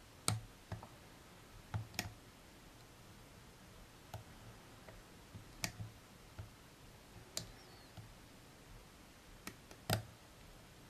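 Lock pick and tension tool working the pins of a pin-tumbler challenge lock: light, irregular metallic clicks, with a louder click near the end.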